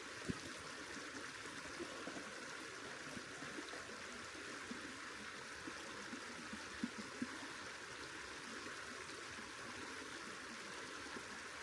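Yarrangobilly River bubbling away: a faint, steady rush of flowing water, with a few small pops.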